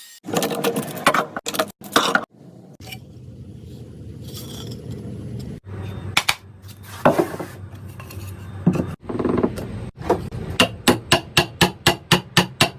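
Metal tools clinking and knocking over a steady low hum, then a run of rapid, even hammer blows, about four a second, in the last couple of seconds.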